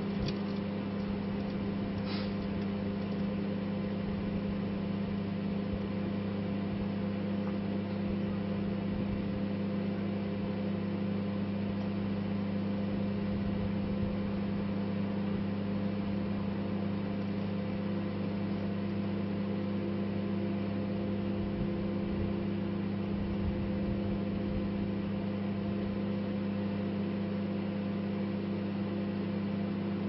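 Microwave oven running with a steady low hum, with a small collapsible umbrella inside. A couple of faint snaps near the start, about two seconds in.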